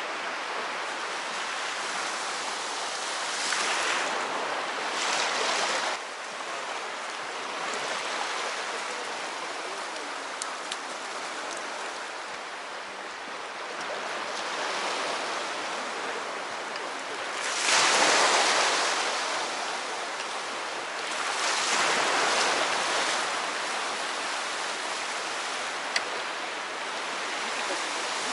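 Sea waves washing onto the shore, swelling and easing several times, the biggest surge about two thirds of the way through. A single sharp click near the end.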